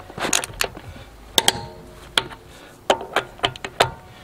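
DeWalt ratcheting torque wrench and its steel socket on truck lug nuts: a series of sharp metal clicks and clinks, some ringing briefly, as the nuts are checked at 150 foot-pounds.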